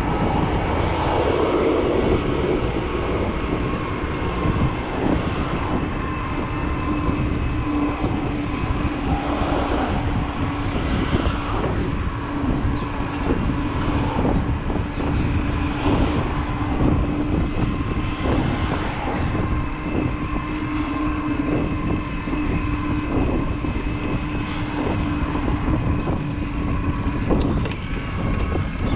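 Riding an e-bike on a wet road: wind rushing over the camera microphone and tyre noise, with a steady whine from the Trek Powerfly 4's mid-drive motor under pedal assist.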